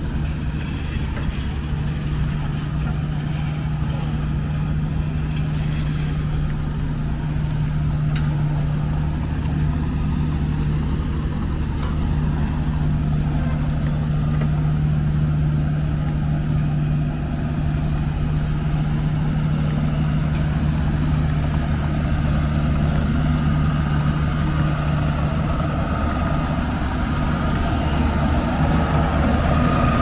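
Diesel engines of road-paving machinery, an asphalt paver and a road roller, running with a steady low hum. A higher whine comes in near the end.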